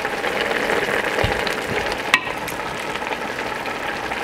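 Pots of greens and broth simmering on the stove with a steady bubbling hiss. About two seconds in, one sharp metallic clink rings out as the steel tongs strike a pot.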